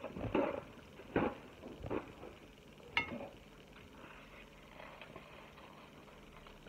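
A few short rustles and thumps as a person settles back at a table and handles a paper napkin, then one sharp click about three seconds in. Quieter room tone follows.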